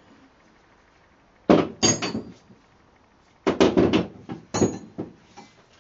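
Metal tools, steel sockets, clinking and clattering in two short bursts of knocks, a few with a brief metallic ring.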